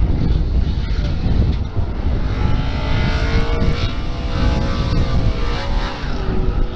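Gusty wind buffeting the microphone, with the engines of distant drift cars revving. Their pitch rises and falls from about a third of the way in until near the end.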